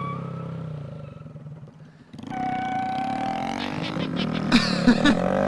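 A Honda Grom's small single-cylinder engine running. It fades at first, then from about two seconds in comes on again louder and keeps getting louder as the bike is ridden hard, with three sharp cracks near the end. It is pretty loud.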